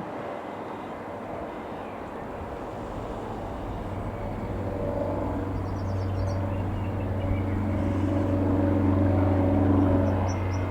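Four-cylinder piston engine of a Robin DR400-180 light aeroplane droning as it approaches. The sound grows steadily louder, and a steady engine hum stands out from about four seconds in.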